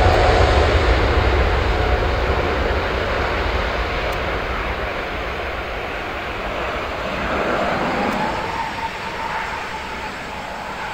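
Boeing 777 twin jet engines at takeoff thrust during the takeoff roll: a deep rumble that slowly fades as the airliner moves away, with a steady whine that rises a little in pitch about eight seconds in.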